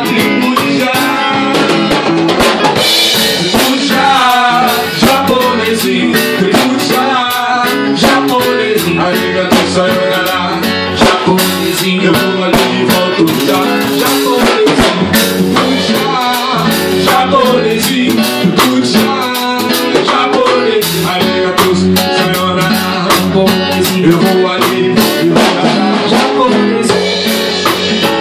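A live band playing an instrumental passage: drum kit and guitars, with a melody line that slides in pitch above them.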